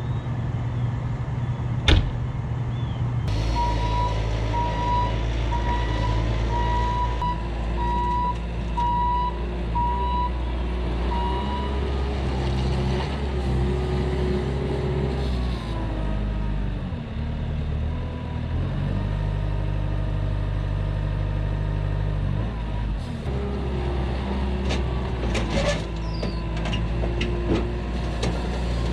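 Bobcat T650 compact track loader's diesel engine running under load, its note dropping and rising as it works, with a reversing alarm beeping about once a second for several seconds early in the stretch. A sharp knock comes about two seconds in, and a few metallic clanks near the end.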